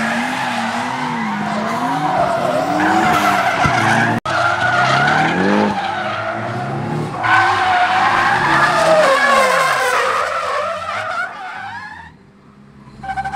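Nissan 350Z drifting: tyres squealing with a wavering pitch while the V6 engine's revs rise and fall. The sound breaks off for an instant about four seconds in, and fades down near the end.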